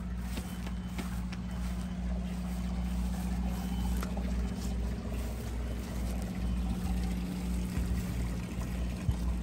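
Boat engine idling: a steady low hum, with a few light knocks.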